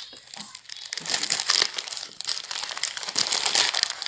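Paper wrapping around a doner kebab crinkling and rustling as it is handled and peeled back. It is quieter for the first second and then keeps up a steady crackle.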